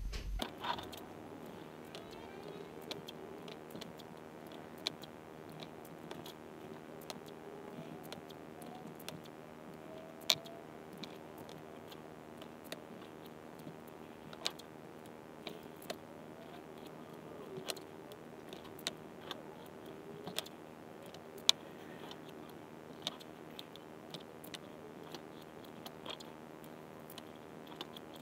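Scattered small clicks and crackles of masking tape being pulled, pressed down between the frets of a maple guitar fretboard and trimmed with a blade, over a faint steady hum. Two clicks, about ten seconds in and about twenty-one seconds in, stand out from the rest.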